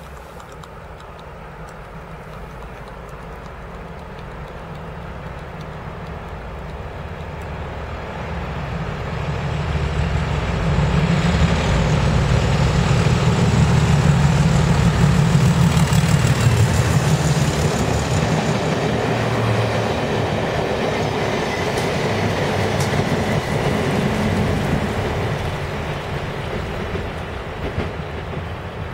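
Class 31 diesel-electric locomotive 31233, with its English Electric V12 diesel engine running, approaches, passes close and draws away hauling a rake of coaches, the wheels rumbling over the rails. The heavy engine note builds steadily for about ten seconds, is loudest around the middle, then fades as the train recedes.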